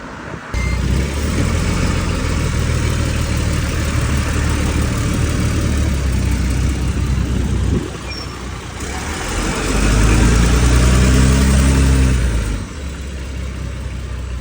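Engine of an RATP Heuliez GX 437 articulated bus running with a loud tractor-like noise, which is unusual for this bus. About nine seconds in it revs up and grows louder for a few seconds, then drops back to a steadier idle.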